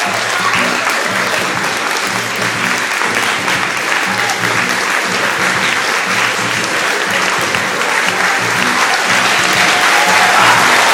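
Audience applauding steadily over background music with a pulsing beat, the clapping growing louder near the end.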